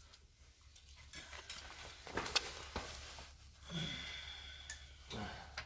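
Faint scattered clicks and light knocks of hands handling a used car engine's parts, over a low steady hum, with a short low grunt-like voice sound about four seconds in.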